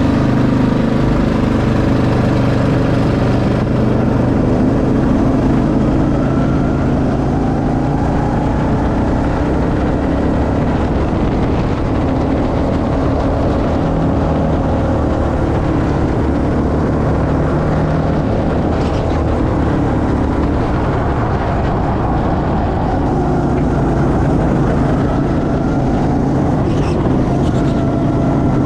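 Go-kart engine running loud and steady from the driver's seat, its pitch rising and falling as the kart accelerates and eases through the corners.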